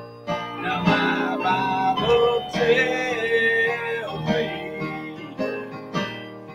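A man singing a Christian song over instrumental accompaniment, the phrase starting about half a second in and easing off near the end.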